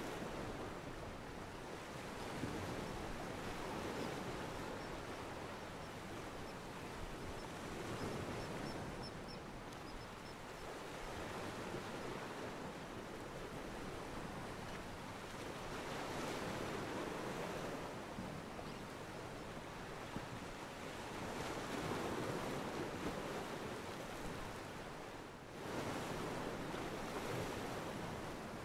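Ocean waves washing against a pier, from a stock sound-effect recording, swelling and easing every few seconds with a brief dip near the end.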